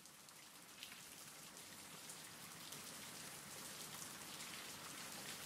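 Steady rain falling on a surface, with scattered individual drops, fading in gradually.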